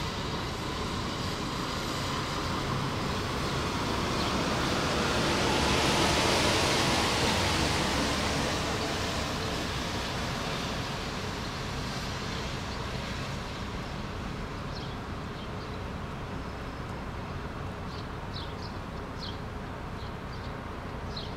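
Outdoor city ambience of distant traffic, a steady rush of noise. It swells to its loudest about six seconds in and fades away over several seconds, and a few short high chirps come near the end.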